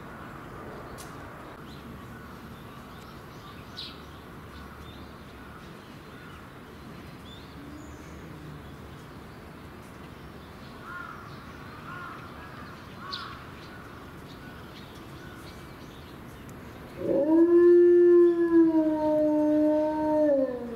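Chinese wolf howling: one long howl starts about three-quarters of the way in. It rises sharply, holds level and slides down at the end. Before it there is only faint background sound.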